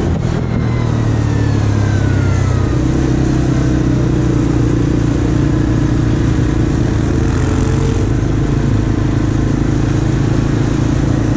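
Quad bike engine running steadily while riding, its note shifting about three seconds in.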